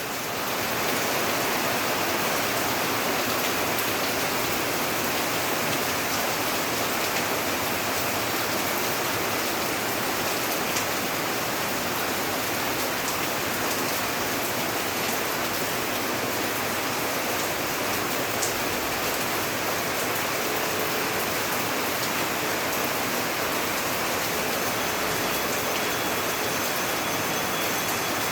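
Rain falling steadily: an even hiss with a few single drops ticking now and then.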